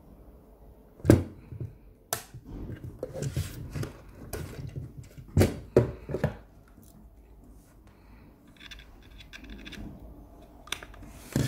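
Knocks, clicks and rustling from gear being handled on a wooden desk: a power supply is set down and a USB-C cable is picked up. The cable plug clicks into an adapter in a drill's 18 V battery pack near the end. The loudest knock comes about a second in.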